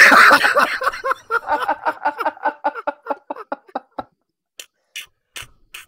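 A person laughing: a loud burst, then a long run of quick 'ha' pulses that gradually fade out over about four seconds, with a few faint clicks near the end.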